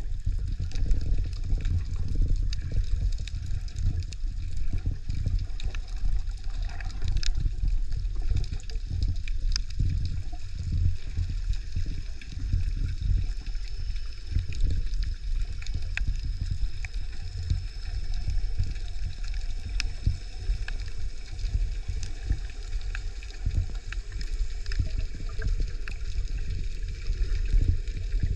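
Water sloshing and gurgling, heard muffled from underwater by the camera, with a steady low rumble and a few faint clicks.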